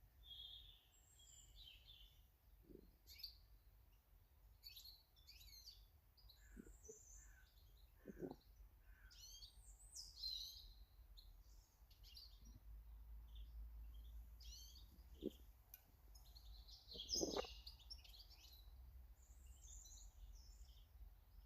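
Small garden birds chirping and calling, many short high notes one after another. There are a few soft knocks, the clearest about eight seconds in and about seventeen seconds in. A faint low rumble runs underneath.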